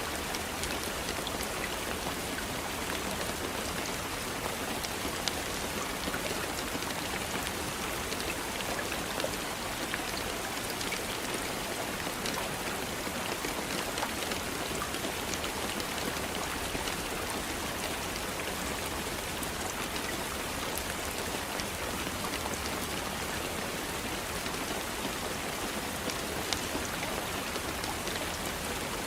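Steady rain falling, a continuous hiss dotted with the ticks of individual drops striking a surface.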